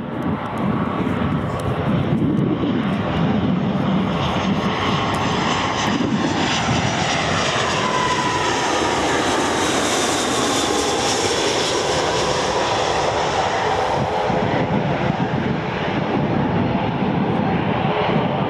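Airbus A319 jet engines at approach power as the airliner passes low overhead on final approach, gear and flaps down: a loud, steady jet roar with an engine whine that falls in pitch as it goes by, about halfway through.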